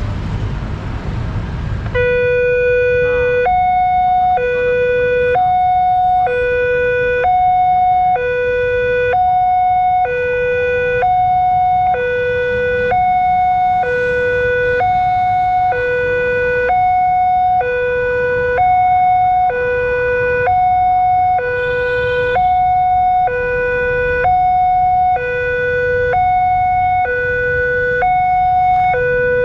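Railway level crossing alarm sounding from about two seconds in: an electronic two-tone, ambulance-like alarm alternating a lower and a higher tone, about one pair every two seconds, over the rumble of road traffic.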